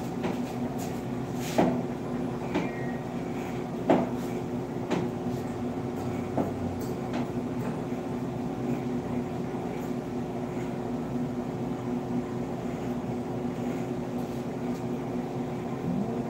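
Electric hair clippers running with a steady buzz as a haircut is trimmed, with a few sharp clicks in the first five seconds.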